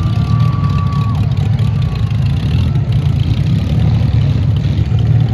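Demolition derby car engines running, a loud steady low drone, with a thin whine that holds for about a second near the start and then drops away.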